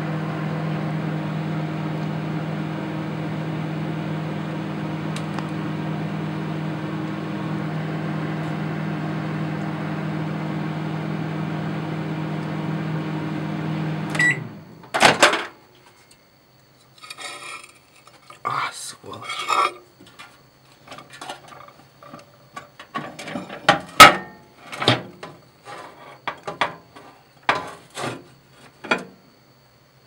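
Household microwave oven running with a steady low hum while heating a ceramic crucible of metal. About halfway through the hum stops with a click and the door is opened, followed by a string of irregular knocks and clicks as the door, turntable and crucible are handled, one sharp knock the loudest.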